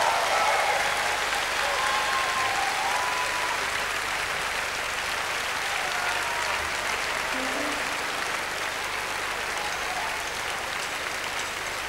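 Large concert audience applauding steadily, with a few scattered shouts; the applause slowly eases off.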